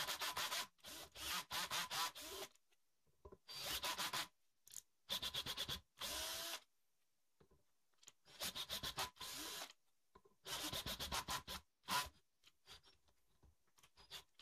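Cordless drill/driver turning a tap into aluminium, run in short bursts of a second or so several times, with brief stops between, while threads are cut in the holes.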